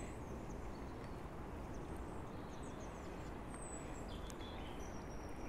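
Faint, steady rush of a flowing river, with a few thin, high bird chirps over it and one longer high call near the end.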